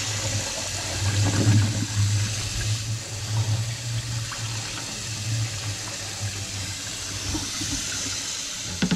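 Kitchen faucet running a steady stream of water into a stainless-steel sink, with a brief knock near the end.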